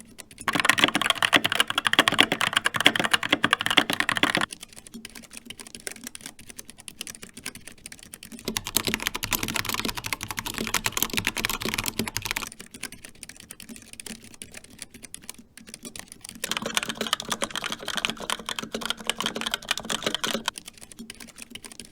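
Fast typing on three mechanical keyboards in turn. First a Skyloong GK61 with Gateron Optical Brown switches, then a Corsair K70 Pro Mini Wireless with Cherry MX Red switches about eight seconds in, then a Razer Pro Type with Razer Orange switches near the end. Each plays as a dense run of keystrokes lasting about four seconds, with fainter clicking in between.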